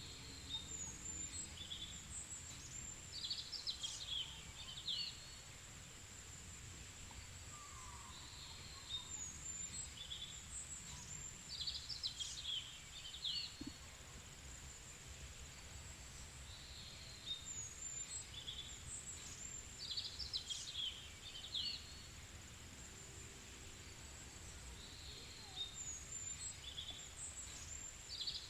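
Outdoor lakeside ambience: a steady, high, thin insect drone with a short burst of bird chirps that comes back in the same shape about every eight and a half seconds, over a faint low rumble.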